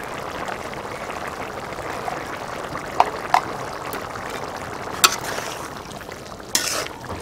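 Curry boiling steadily in a large metal pot, a continuous bubbling. A few sharp ringing metal clinks come around the middle, and a brief swishing stir of a ladle through the curry comes near the end.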